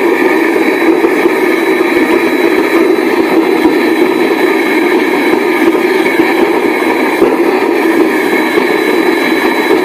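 Home-made vegetable-oil-fired furnace burner running, its forced-air blast and flame making a loud, steady noise that does not change.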